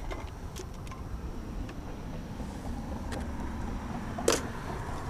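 Low steady rumble of road traffic, with a few light clicks of fishing gear being handled and one sharp click about four seconds in.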